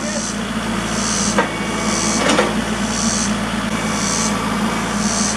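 An engine running steadily, with a hiss that swells about once a second and a few sharp knocks.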